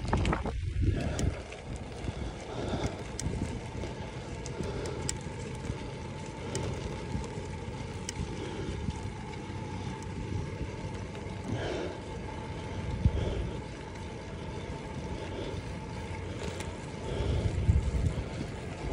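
Riding noise from a bicycle: tyres rolling over rough, cracked concrete with wind rushing past the handlebar-mounted microphone, steady with louder surges about two-thirds through and near the end.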